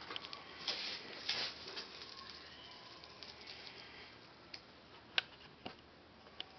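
Maine Coon kittens moving about on a fleece blanket: soft rustling of paws on the fabric, with scattered light clicks, a few of them sharp in the second half.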